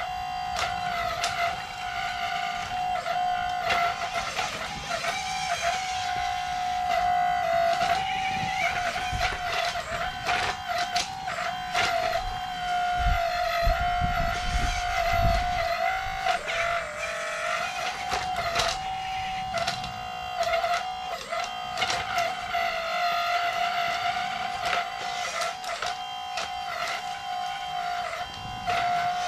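Small electric motor of an RC construction model whining at a steady pitch, with brief dips and many light clicks, and a low rumble about halfway through.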